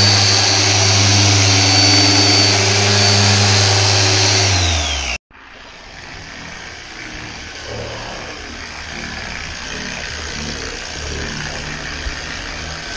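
Electric car polisher running with a steady hum and a high whine, then switched off and winding down about five seconds in. After an abrupt cut, only a much quieter steady hiss remains.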